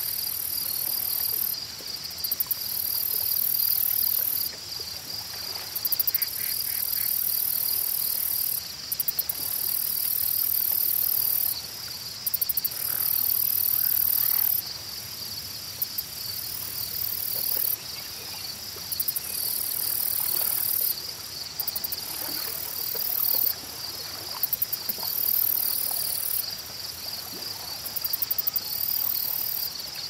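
A chorus of insects in a lakeside summer ambience. Under it runs a steady high trill, and over it louder, very high buzzing phrases a few seconds long start and stop again and again. A few faint bird chirps come in now and then.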